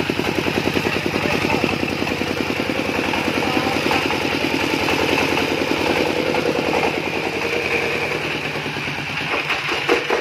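YAMAMAX S1125 single-cylinder diesel engine running at a very low idle, with a rapid, even chugging of firing strokes. Near the end the strokes slow and separate into single thumps as the engine winds down.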